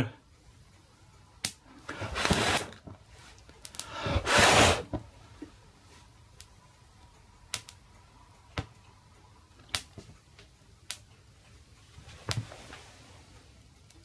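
Wooden board burning under a dry-run, red-hot immersion heater element: scattered sharp crackles and pops, about one a second, with two short hissing bursts in the first five seconds.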